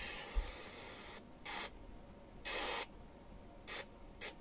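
XHDATA D-109WB portable radio's speaker giving FM hiss and short bursts of noise, cut off by quiet gaps, as the tuning knob steps through weak stations on the FM band. A light knock of the hand on the radio about half a second in.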